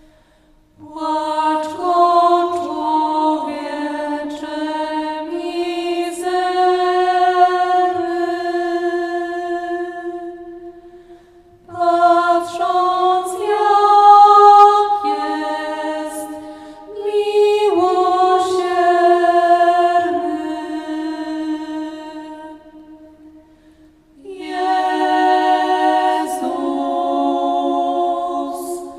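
Voices singing unaccompanied in harmony, like a small a cappella choir: slow, long-held notes in three phrases, with short pauses about eleven and twenty-three seconds in.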